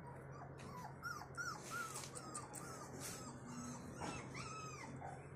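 Pakistani bully puppy whimpering: a rapid run of short, high, arched whines, about three a second, faint throughout.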